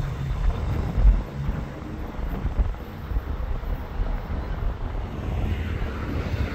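Low rumble of an approaching EMD GT26CW diesel-electric locomotive and its train, with wind gusting on the microphone.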